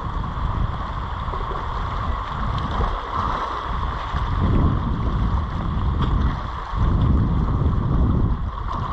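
Wind buffeting the microphone over the wash of sea against rocks: a steady rumbling noise that swells and eases in gusts.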